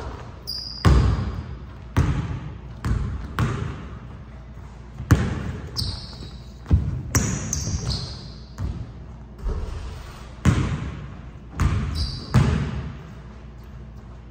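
A basketball thudding on a hardwood gym floor and off the rim, about one hit a second, each ringing in the large hall. Short high sneaker squeaks come between the hits.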